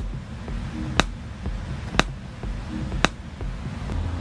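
Polarity-test pulses clicking from the truck's audio speakers, one sharp click about once a second. Each click is the test signal that a handheld polarity checker reads to show whether the speaker is wired in phase.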